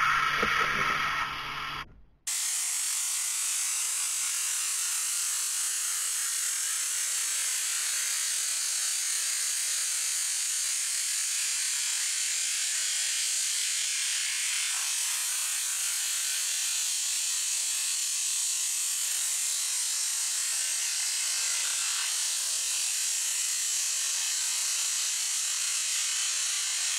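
High-pressure washer jet spraying steadily onto raw sausages on concrete: an even, steady hiss. Before a brief drop-out about two seconds in, there is a humming mechanical sound with several steady tones.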